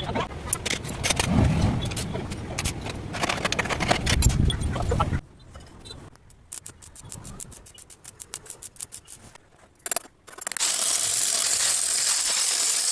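Metalworking sounds: about five seconds of clattering and scraping metal, then a quieter stretch of rapid ticking, then a loud steady hiss from about ten seconds in.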